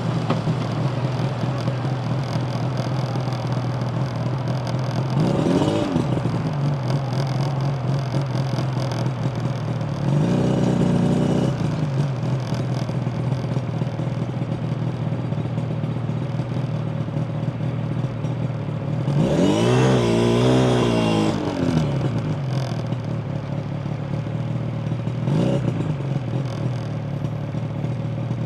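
Yamaha TZR250 1KT's two-stroke parallel-twin engine running at a steady low speed, its revs rising and dropping back four times: short blips about five seconds in and near the end, a longer one around ten seconds, and the biggest rise and fall around twenty seconds.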